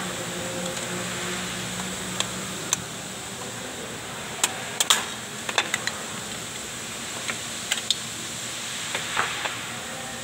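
Sharp metallic clicks and clinks, irregular and in small clusters, as a screwdriver and the brake shoe hardware are worked into place on a drum brake. A steady hum runs underneath, its low tones dropping away about two and a half seconds in.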